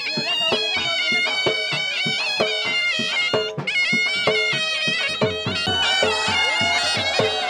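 A folk reed pipe playing a wavering, ornamented melody for a snake dance, over a steady drum beat of about two strokes a second.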